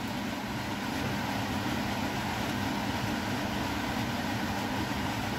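Kitchen fan running steadily: an even whir with a constant low hum.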